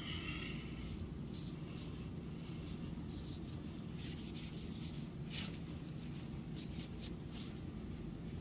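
Soft, irregular rubbing strokes on the painted plastic body of a Nerf rifle as a tissue wipes and dabs weathering onto it, over a steady low hum.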